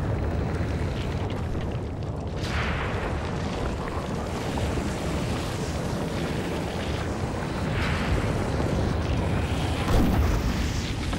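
Deep, continuous rumbling of an underwater volcanic eruption, with surges of hiss about two and a half seconds in and near eight seconds, and the loudest swell near the end.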